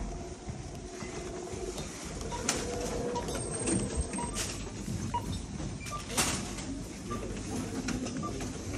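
Supermarket background noise near the checkouts: a steady hubbub with scattered short beeps from the checkout scanners and a few sharp clicks and knocks.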